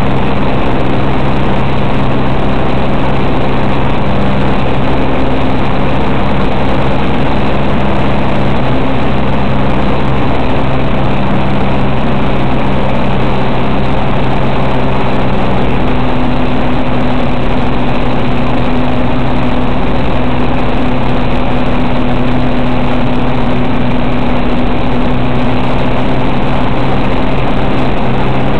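Single-engine propeller aircraft's engine and propeller running steadily at cruise, heard loud from inside the cockpit; the engine note shifts slightly about halfway through.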